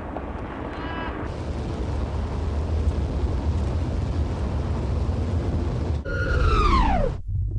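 Low, steady rumble of a vehicle on the road that builds slowly in loudness. About six seconds in, a pitched sound slides steeply down in pitch for about a second and cuts off abruptly.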